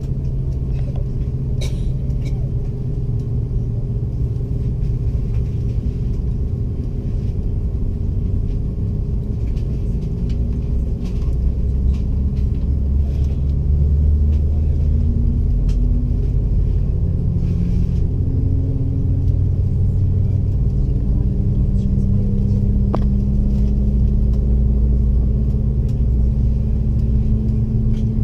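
Steady low rumble of an Airbus A330 airliner heard inside the passenger cabin, with a few steady humming tones over it; it grows a little louder about halfway through.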